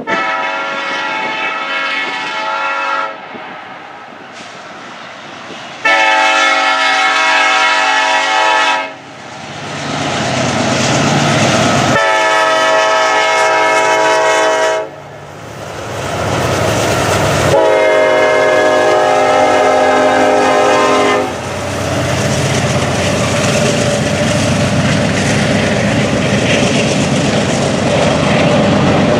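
Diesel freight locomotive's air horn sounding four long blasts, each a chord of several tones, as the train approaches a grade crossing. From about halfway through, the rumble of the passing locomotive builds, and it carries on after the last blast with the clickety-clack of rail cars going by.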